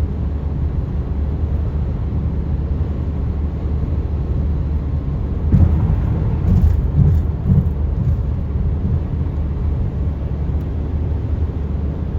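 Car driving on a wet highway: a steady low rumble of road and tyre noise with a hiss above it. It grows louder and more uneven for a couple of seconds about halfway through.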